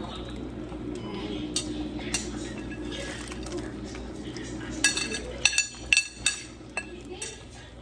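Ceramic plate clinking several times against the rim of a large cooking pot, sharp clinks that ring briefly, as pork cracklings are tipped off it into the soup. A steady hum runs beneath and fades out just before the clinks.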